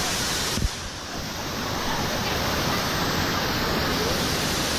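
Rushing river water, a steady loud hiss of current and rapids close to the camera's microphone, with a single sharp knock a little over half a second in, after which the sound is briefly duller.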